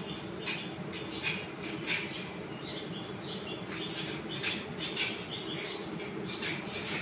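A large swarm of honey bees buzzing steadily, the air full of bees from a colony disturbed as its comb is cut away. Over the hum come many short, high chirps, several a second.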